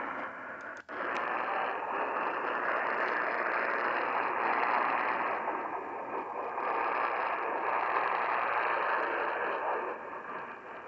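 Radio receiver static: a steady hiss between stations, with a few clicks and a brief cutout just under a second in.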